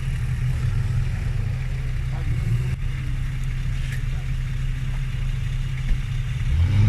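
Off-road 4x4 engine running steadily at low revs, then revved up and back down near the end.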